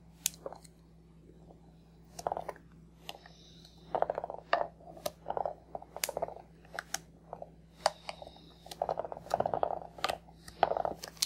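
Plastic toy scissors snipping through strands of Play-Doh hair: a run of irregular sharp clicks and short snips, starting about two seconds in and coming roughly every half second.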